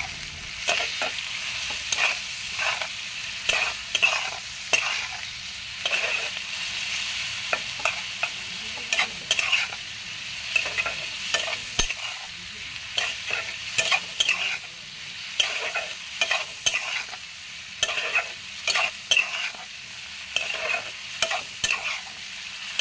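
A spatula scraping and stirring prawns, onion and tomato masala in a kadai, with the oil sizzling steadily underneath. The scrapes come irregularly, about one or two a second: the masala being sautéed down (kosha).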